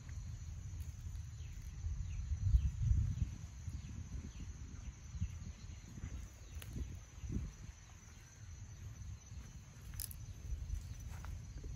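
Outdoor ambience of insects trilling steadily at a high pitch, with a low rumble underneath that is loudest about two to three seconds in.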